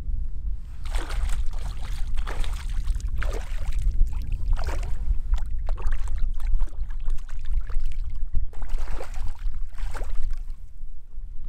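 Several splashes of water as a hooked perch thrashes at the surface beside the paddleboard while being played on ultralight spinning tackle, over a steady rumble of wind on the microphone.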